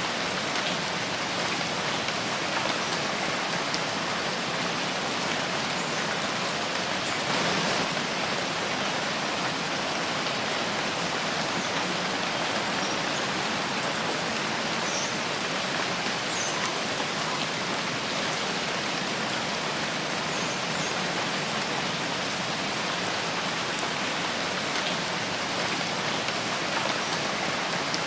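Steady rain falling in a forest, an even hiss of drops on leaves and ground. A few faint, short high chirps sound about halfway through.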